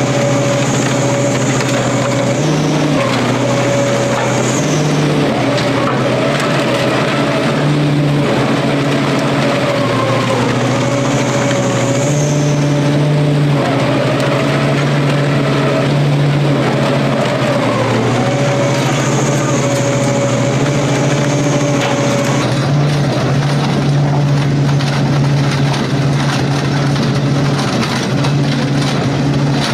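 Industrial crusher machine running with a loud, steady motor hum while it crushes material, with a continuous grinding and cracking noise over the hum.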